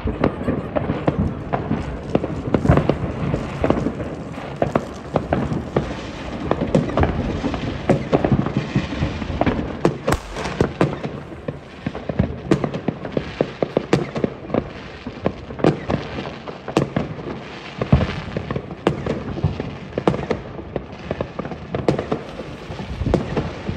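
Many fireworks going off at once: a dense, irregular run of overlapping bangs and crackles that never stops.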